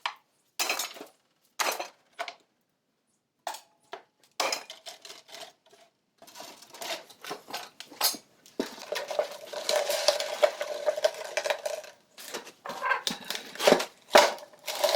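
Metal parts clinking and clattering as an old machine is taken apart by hand: separate knocks at first, then a longer stretch of rattling and scraping about halfway through.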